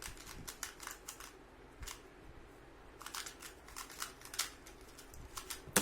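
Plastic 2×2 Rubik's cube being turned quickly by hand in a speed-solve: rapid clicking and clacking of the layers, in bursts of turns. It ends with one sharper, louder click.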